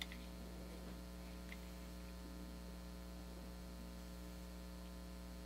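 Low, steady electrical mains hum, with a faint click right at the start.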